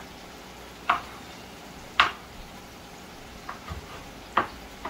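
Knife chopping a tomato on a wooden cutting board: about five sharp taps at uneven intervals, the loudest about two seconds in, over a faint steady sizzle of onions and seasoning frying in a pot.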